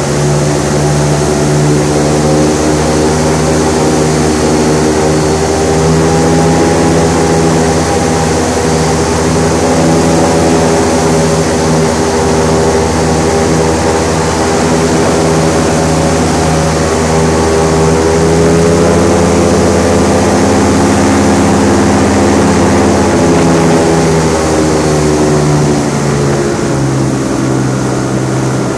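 Airboat's engine and air propeller running at cruising speed, a loud steady drone whose pitch dips briefly near the end.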